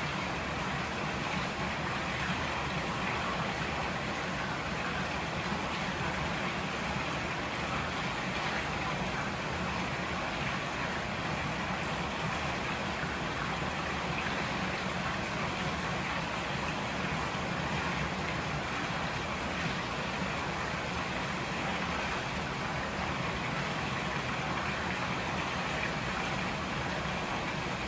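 A river rushing steadily: an even, unbroken wash of flowing water.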